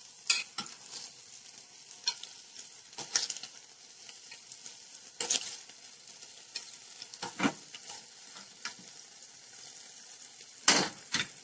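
Chicken pieces sizzling faintly in a frying pan as the honey-balsamic sauce dries down to a caramel. Scattered clinks and scrapes come as a fork lifts the pieces out of the enamel pan into a glass baking dish, the loudest two near the end.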